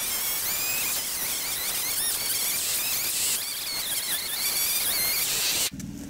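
Woodland insects making a steady high hiss, with birds chirping over it; it cuts off suddenly near the end.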